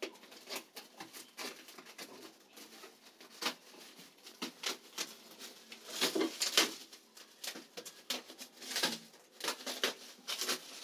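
Plastic stretch film wrapping a cardboard box crinkling and crackling in irregular bursts as it is pulled at and cut away.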